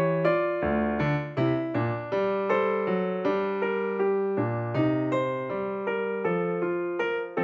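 Background music: an electric piano or keyboard playing a gentle melody with chords.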